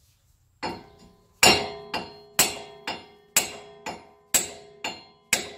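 Hammer blows driving wheel studs out of a Scion FR-S front wheel hub: about ten metal-on-metal strikes, roughly two a second, starting about half a second in. Each strike leaves a ringing tone from the hub.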